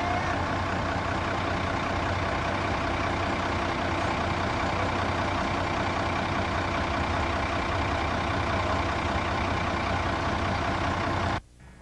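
School bus engine idling steadily while the bus stands stopped, with an even hiss over it. The sound cuts off suddenly near the end.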